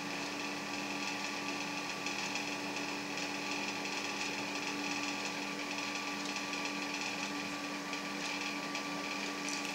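Sugar syrup pouring in a steady thin stream from a stainless steel pot through a plastic funnel into a glass jar of lemon-zest spirit, over a steady background hum.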